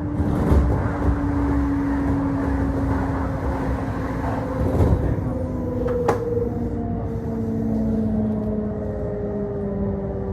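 Electric commuter train heard from inside the car: a rumble of wheels on rails under a traction-motor whine of several tones that falls slowly and steadily in pitch, as the train brakes down into a station. A single sharp click about six seconds in.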